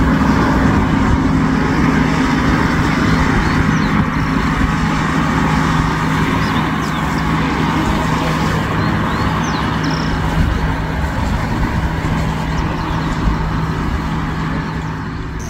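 An engine running steadily under a dense rushing noise, holding a low, even drone with no change in speed. It fades away near the end.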